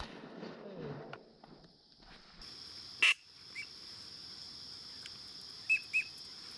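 Faint, short, high chirps of teal ducks, three times in the second half, with one sharp crack about three seconds in.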